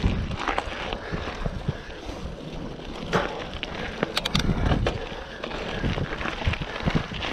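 Mountain bike being ridden over rough trail ground: tyre noise with irregular knocks and rattles, and wind on the microphone.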